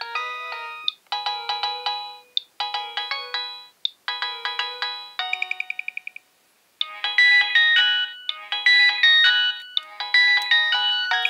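Nokia 6820a ringtone playing through the phone's small speaker: a polyphonic melody of electronic notes in short phrases. About five seconds in comes a quick run of one repeated note, then a brief pause, and the melody resumes.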